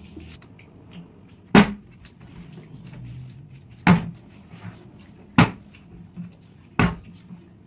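Plastic water bottle tossed and landing on a wooden tabletop, four sharp knocks spaced one to two seconds apart.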